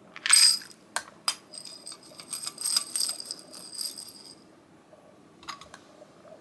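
Dry cat food rattling and clinking against a ringing bowl: a loud rattle at the start, two sharp clicks, then about three seconds of clinking, with a couple more clicks near the end.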